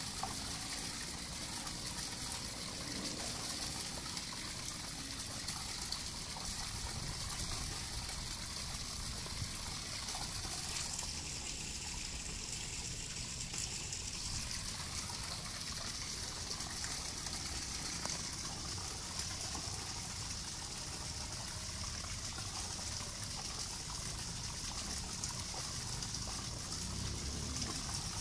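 Steady outdoor background noise: a constant high hiss over a low, uneven rumble, with no distinct events. The high hiss changes in tone about eleven seconds in.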